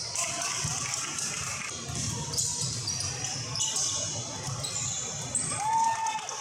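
Basketball game sounds on a hardwood gym floor: a ball bouncing and sneakers squeaking as players move, with one longer squeak near the end.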